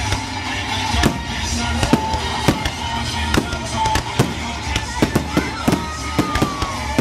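Aerial fireworks shells bursting in quick succession, many sharp bangs about two a second.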